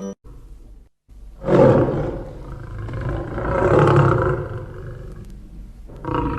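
An animal roaring: a long, loud call begins about a second and a half in, swells again around four seconds, and fades, and a second call starts near the end.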